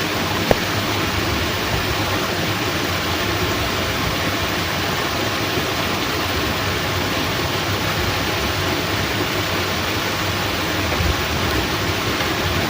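Steady, even rush of water: heavy rain mixed with water flowing through a fish-pond sluice gate. A single short click about half a second in.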